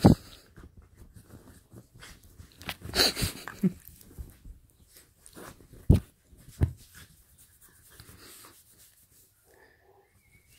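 Small black-and-tan dog playing on a bed with a hand: huffing, wheezy breaths and short snuffles, with bedsheets rustling. A few sharp bumps as it rolls and paws, the loudest right at the start and about six seconds in.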